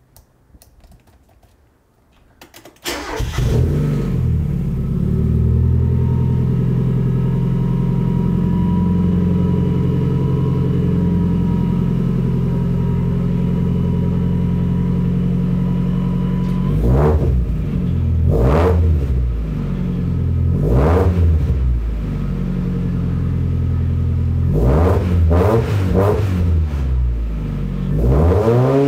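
Mk1 Mazda MX-5 four-cylinder engine starting about three seconds in on its first start through a newly fitted Malian cat-back exhaust, then idling steadily. In the second half it is revved in several short blips that rise and fall. It is very loud from the tailpipe.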